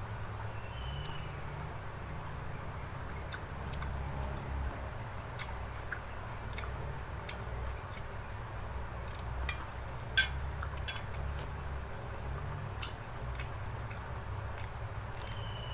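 Eating close to the microphone: chewing with a low rumble, and scattered sharp clicks of utensils on a plate, the loudest about ten seconds in.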